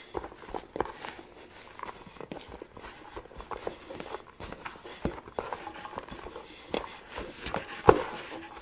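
Hands kneading and squeezing salt dough in a stainless steel mixing bowl: irregular soft squishes and small knocks of the metal bowl, with one sharper knock near the end.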